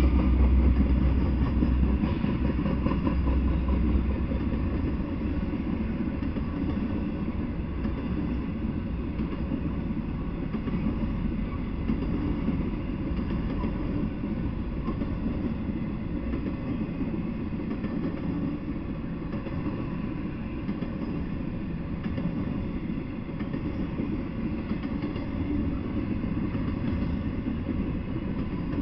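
Intermodal freight train of double-stacked containers and trailers rolling past: the steady rumble and rattle of the cars on the rails, louder for the first few seconds and then even.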